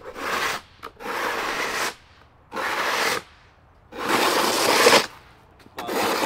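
Dirt being scraped across concrete paving blocks in five rough strokes, about one a second, as the loose soil is gathered up off the paving. The loudest stroke comes about four seconds in.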